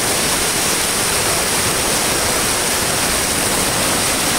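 Flash-flood water rushing, a loud, steady, unbroken noise.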